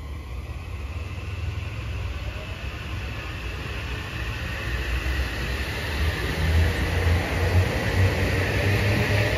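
Kawasaki M8 electric multiple unit pulling away, its traction motors whining upward in pitch as it accelerates, over a low rumble of wheels on the rails that grows louder as the cars pass close by.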